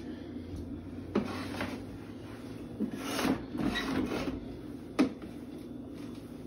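A cloth rubbing and wiping a wet countertop in several strokes, with a single sharp knock about five seconds in.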